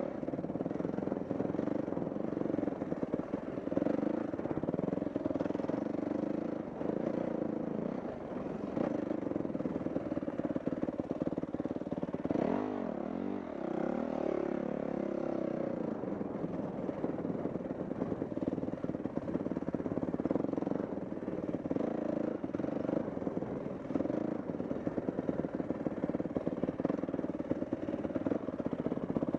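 Dirt bike engine running while being ridden, its note rising and falling with the throttle and swinging sharply up and down about halfway through, with some rattling.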